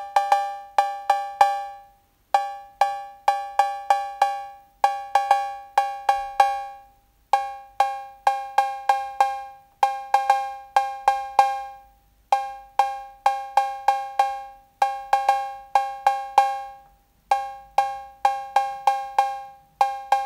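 Roland TR-808 drum machine cowbell, its two square-wave oscillators sounding together, played in a repeating pattern of quick strokes broken by short pauses about every two and a half seconds. The upper tone holds steady while the lower tone is tuned down from about 606 Hz to the original 540 Hz.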